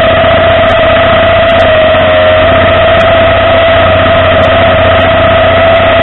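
Tow truck engine running steadily, with a constant whine above a low hum.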